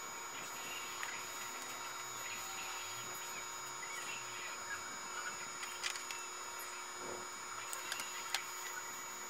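Steady electrical hum and whine made of several fixed tones, with a few faint clicks from small circuit-board parts being handled in the second half.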